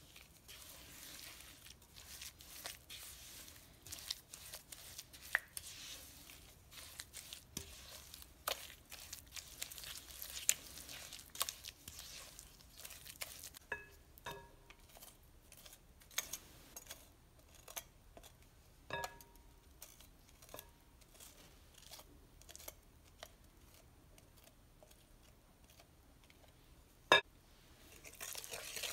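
Silicone spatula stirring and folding crumbly cookie dough in a glass bowl: soft scraping and squishing with many small clicks, a few of them ringing off the glass. A sharp clink against the bowl near the end, then a wire whisk starts beating the dough, louder.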